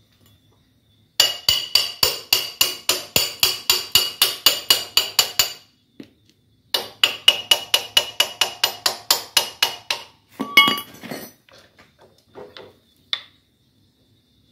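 Ratchet wrench tightening a motorcycle's rear axle nut: two runs of quick, even, ringing metal clicks, about four or five a second, with a short break in between. A brief rattle and a few lighter knocks follow near the end.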